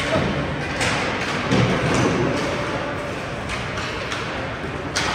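Ice hockey play: several sharp knocks and clacks from sticks, puck and boards over a steady arena background noise.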